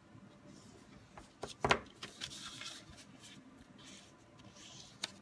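Sheet of 6x6 designer paper being folded along its score lines and pressed flat by hand: soft rustling and rubbing of paper, with a sharp click about a second and a half in and a smaller one near the end.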